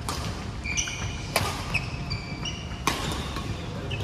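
Badminton rally: three sharp racket strikes on the shuttlecock about a second and a half apart, with shoes squeaking briefly on the wooden court floor between them.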